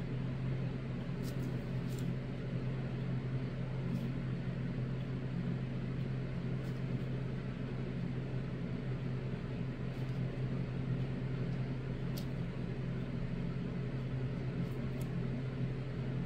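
Steady low hum of a fan or small motor, with a few faint ticks.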